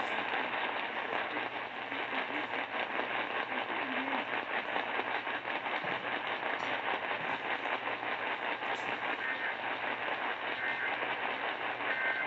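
Radio receiver static between broadcasts: a steady hiss with a dense, fine crackle, muffled and cut off above the treble like a weak AM signal.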